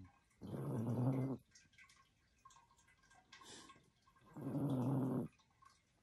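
Chihuahua snoring in its sleep: two snores, each about a second long and about four seconds apart, with a fainter sound between them.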